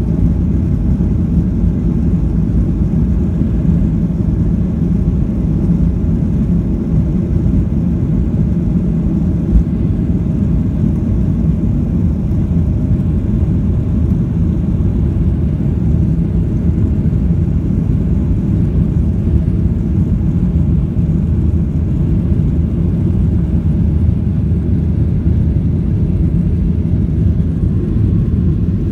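Boeing 737 jet engines at takeoff power, heard from inside the cabin as a loud, steady low rumble through the takeoff roll, liftoff and initial climb, with one brief thump about ten seconds in.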